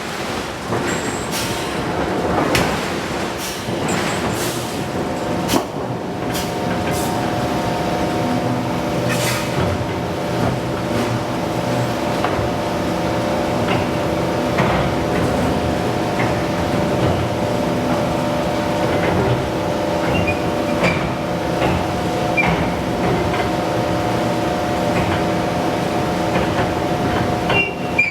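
Forge-shop machinery running with a steady, multi-toned hum, broken by occasional sharp metallic knocks and clanks, several in the first few seconds.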